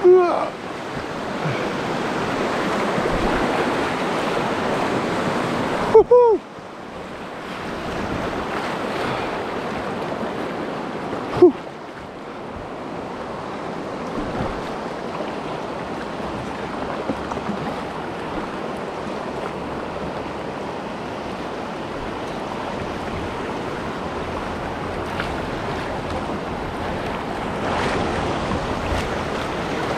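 River water rushing and splashing steadily around a small inflatable boat running shallow, rocky rapids. Two brief sharp sounds cut through, about six seconds in and again about eleven and a half seconds in.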